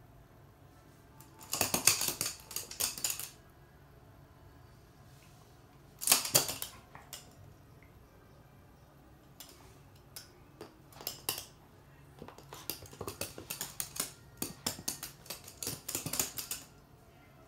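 A toy poodle's claws clicking and skittering on a hard, glossy floor as the dog scampers about, in several quick flurries of rapid clicks, the longest near the end.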